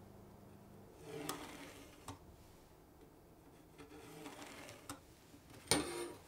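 Pencil scratching along a steel rule as a line is marked on wood, in short strokes about a second in and again around four seconds in, with a small click between. Near the end a louder clack with a brief ring as the metal angle rule is lifted off the board.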